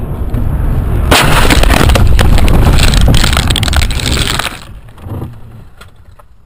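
Car collision heard through a dashcam inside the car: steady road and engine noise, then about a second in a sudden loud crash, with some three and a half seconds of crashing noise, after which it drops to a low rumble.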